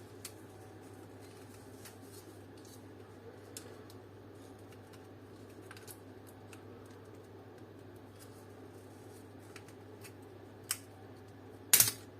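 Scattered small clicks and taps from handling a plastic car dome light and its metal contact springs, with a louder, sharp cluster of clicks near the end, over a steady low hum.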